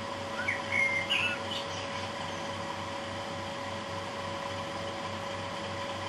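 Bachmann Class 37 model locomotive's sound decoder playing its diesel engine running, a steady low throb through the model's small speaker, over the constant hum of computer servers. Less than half a second in, a brief chirping whistle rises and falls for about a second.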